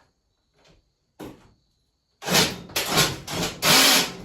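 Power drill driving a screw into the wooden bench frame, running in several short bursts from about halfway through.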